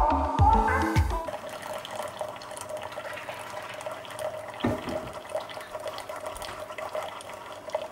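Background music ends about a second in. Then a Keurig single-serve coffee maker is brewing, a thin stream of hot coffee pouring into a mug over a steady hum. There is a single knock about halfway through.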